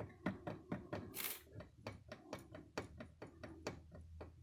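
A quick, uneven series of light knocks, about four or five a second: play in a worn steering rack on a Chery Tiggo, knocking as it is worked back and forth.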